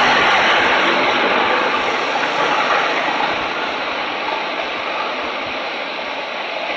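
Jet engines of a twin-engine widebody airliner at takeoff power during its takeoff roll: a steady rushing jet noise that slowly grows quieter.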